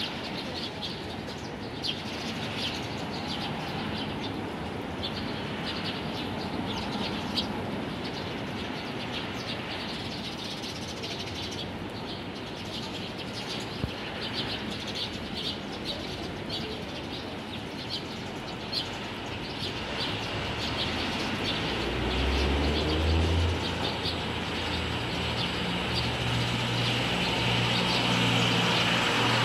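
A flock of Eurasian tree sparrows chirping, many short overlapping calls. About two-thirds of the way in, the low hum of a vehicle engine running nearby rises and becomes the loudest sound near the end.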